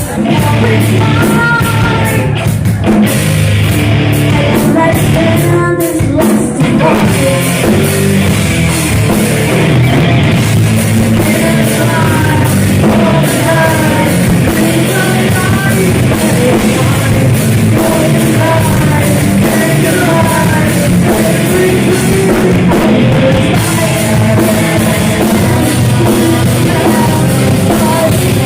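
A heavy metal band playing, with drums, distorted guitars and a singer's voice.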